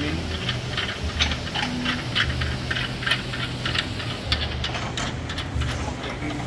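Ratchet wrench clicking in short runs of about four clicks a second as bolts on the steel jig towers of a car straightening bench are tightened, over a low hum that comes and goes.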